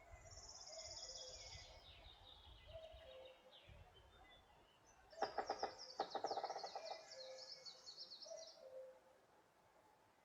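Songbirds singing in a forest: a high, fast trill at the start, then a louder, rapid trilling song about five seconds in, with faint lower calls now and then.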